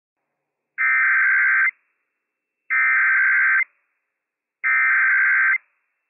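Emergency Alert System SAME header on NOAA Weather Radio: three identical bursts of rapid digital data tones, each just under a second long and about a second apart. The bursts encode the alert's event code, here a Child Abduction Emergency (AMBER Alert).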